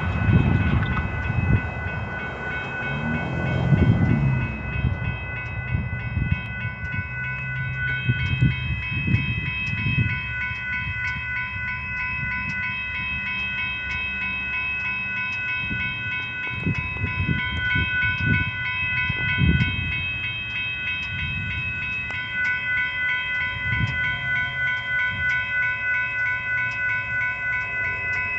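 Railroad crossing warning bell ringing steadily with rapid, evenly spaced strikes while the gates are down. Irregular low rumbles sound underneath it.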